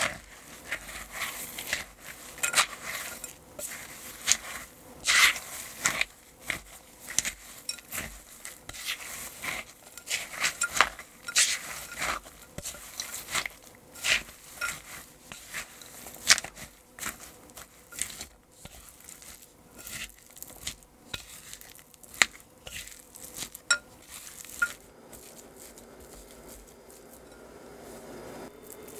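Spatula scraping and knocking against a glass mixing bowl as flour is stirred into chopped nuts and seeds, in irregular strokes about one or two a second. The stirring stops near the end.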